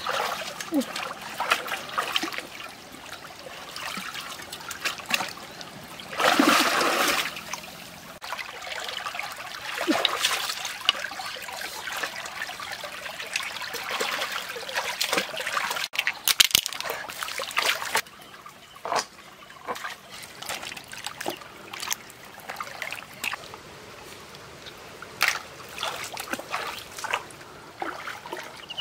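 Hands splashing and sloshing in shallow stream water, over a steady trickle of water running among stones. Two louder spells of splashing, about six seconds in and again around sixteen seconds, then the splashing grows quieter.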